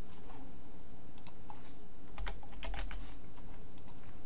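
Computer keyboard keys tapped irregularly, about a dozen separate keystrokes spread over a few seconds, over a steady low hum.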